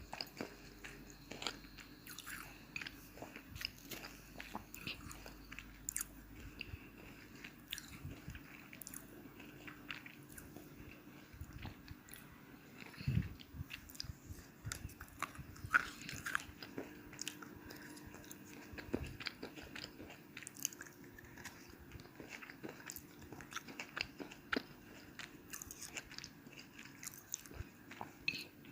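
Slate pencil being bitten and chewed: irregular crisp crunches and clicks, steady throughout.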